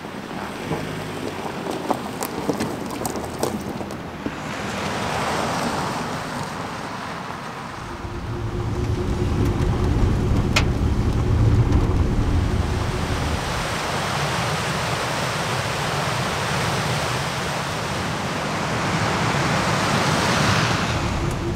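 SUV driving on a gravel road, heard from inside the cabin: a strong low tyre and road rumble with a steady hum starts about eight seconds in. Near the end a swelling rush of tyre noise as the SUV drives past on gravel. Before that, a few light clicks over a steady rushing noise.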